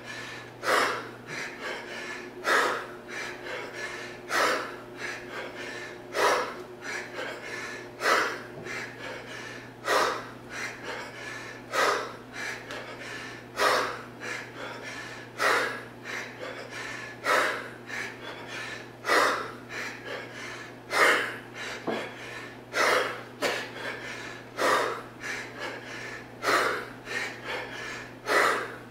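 A man breathing hard and rhythmically while swinging a 40 kg kettlebell. There is a sharp, loud breath about every two seconds, one per swing, with a softer breath between.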